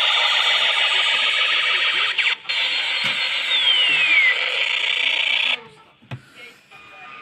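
Electronic alarm siren sounding a loud, harsh, rapidly pulsing buzz. It breaks off for a moment about two and a half seconds in, then resumes with a brief falling tone over it and cuts off suddenly well past halfway.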